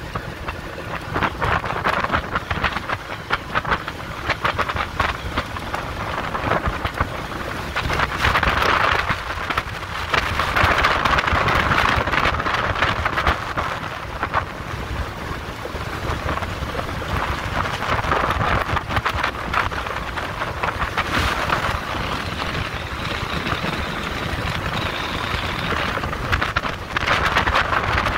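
Steady rushing wind on the microphone mixed with water noise around a flats skiff's hull, with dense crackling throughout and no clear engine tone. It grows a little louder about ten seconds in.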